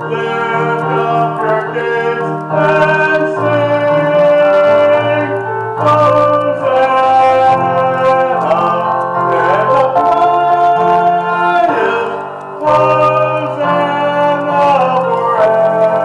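Music: a keyboard accompaniment holding organ-like sustained chords that change every second or two, the instrumental part of a solo hymn.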